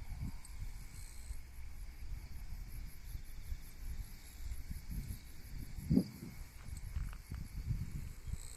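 Outdoor ambience of wind buffeting the microphone in low, uneven gusts, with insects trilling high and steady behind it. A short, louder low sound comes about six seconds in.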